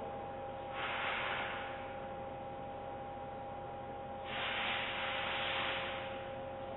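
Steady two-tone electronic whine from a diver/ROV tracking receiver's audio, broken by two bursts of static hiss: a short one about a second in and a longer one of about two seconds past the middle.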